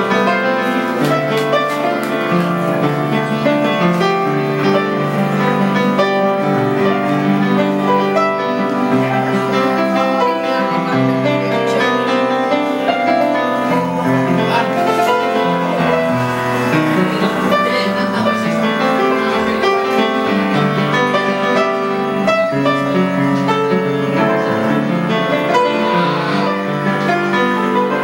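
Upright piano played with both hands: a continuous flow of melody notes over bass chords.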